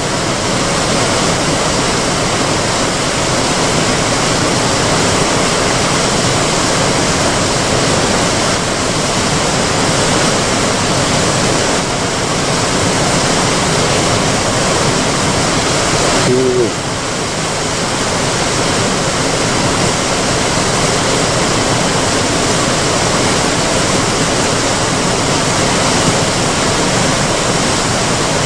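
Steady, loud rush of river water pouring over an intake weir.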